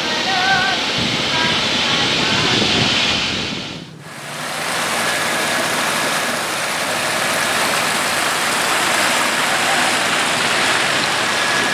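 Water tumbling down a small stepped rock waterfall: a steady, even rush that starts after a cut about four seconds in. Before it there is steady outdoor noise with a few brief, wavering whistle-like sounds.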